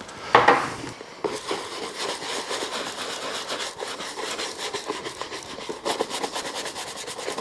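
Bristle brush scrubbing shoe grease into old leather slippers in quick repeated strokes, after a short scrape of the brush in the grease tin just after the start.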